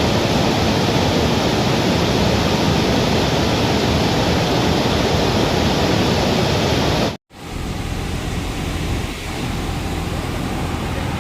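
Steady heavy rush of water pouring from a dam's open gates. About seven seconds in, the sound cuts out for an instant and comes back quieter.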